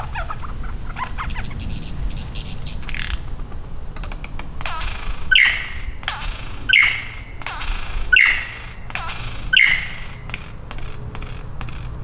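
Superb lyrebird singing: a run of rapid clicks, then four loud repeated calls about a second and a half apart, each a falling note with a sharp click.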